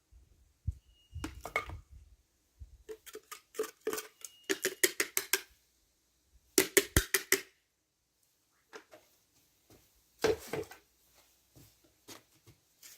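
Hard clinks and knocks of ceramic pots and broken tile pieces being handled, in several quick clusters of clatter with pauses between.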